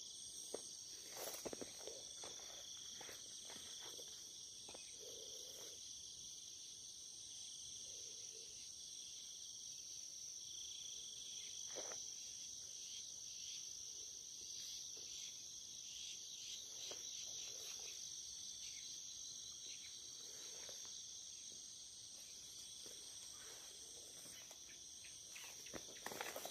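Faint, steady evening chorus of insects such as crickets, trilling high and continuous. Irregular footsteps and rustling through weeds come and go over it, thicker at the start and again near the end.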